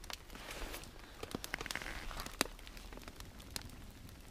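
A small kindling fire of birch bark and split sticks crackling among wet birch logs, just starting to catch. It gives sparse sharp pops, with a soft hiss in the first two seconds.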